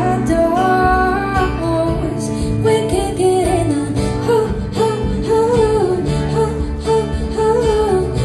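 Live band playing a pop-rock song on acoustic guitar, electric guitar and electric bass, with a wavering melody line carried over the strummed chords and steady bass.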